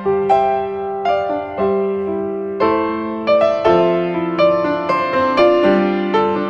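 Background music: a gentle piano melody, notes and chords struck one after another, each ringing and fading.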